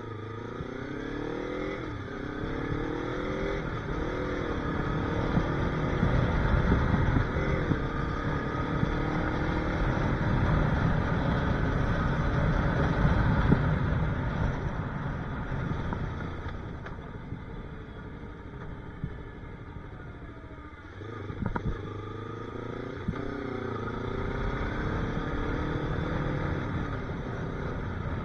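Yamaha R3 parallel-twin motorcycle engine accelerating through the gears, its pitch climbing and dropping with each upshift in the first several seconds. In the middle the engine is mostly covered by wind rushing over the microphone at road speed, and about two-thirds of the way in the engine pitch climbs and drops in steps again.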